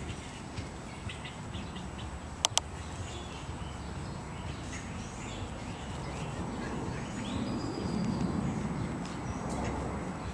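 Outdoor ambience with scattered bird chirps over a steady low background rumble. There are two sharp clicks close together about two and a half seconds in, and the rumble swells a little around eight seconds in.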